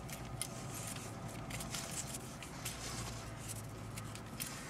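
Nylon tie-down strap webbing rustling and scratching as it is rolled up by hand, in many quick, irregular strokes, over a steady low hum.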